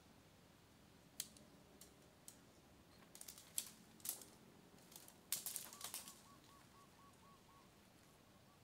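Faint, scattered sharp clicks and snaps: a few single ones, then tighter clusters near the middle. After them a faint, high, quickly repeated chirping.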